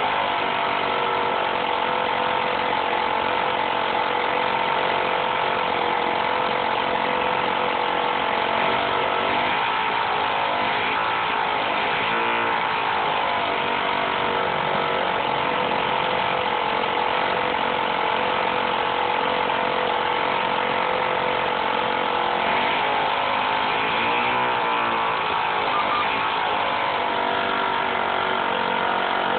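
O.S. 40 LA two-stroke model aircraft engine, set up as a compression-ignition diesel on a castor oil, ether and kerosene mix, running steadily at high speed on a bench mount. Its pitch wavers briefly a couple of times.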